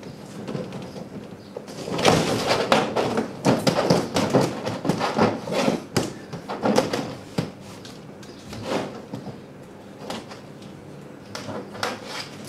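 Welded wire mesh rattling and scraping against a folding table top as it is handled and pressed flat, in irregular bursts of clatter that are densest in the first half.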